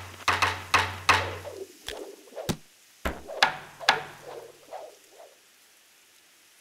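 Cartoon sound effects of sharp knocks and taps, coming fast at first over the last notes of music that stops about a second and a half in. A few spaced knocks follow and die away by about five seconds in.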